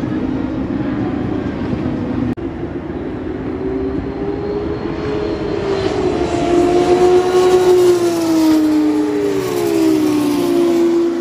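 Formula 1 cars' 1.6-litre turbocharged V6 hybrid engines running along the track. The engine note glides up and down as the cars pass and is loudest in the second half, with a sudden break about two seconds in.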